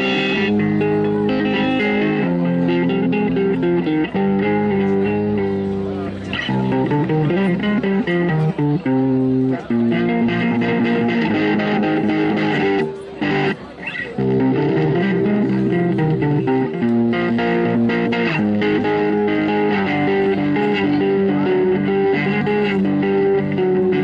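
Double-neck electric guitar played through a small amplifier: a blues melody line of sustained notes, with a brief break about halfway through.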